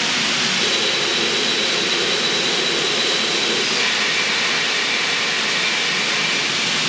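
Train sound effect for an N scale model railway: a steady, loud rushing rumble with a faint high whine over it.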